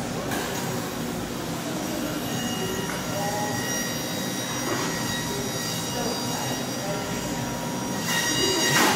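Electric juicer motor running with a steady high-pitched whine of several tones, growing louder near the end.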